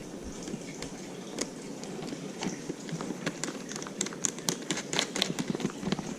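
Irregular light clicks and taps of a depth finder's power-lead clamps being fitted onto a portable lithium battery box's post terminals, coming thickest in the middle.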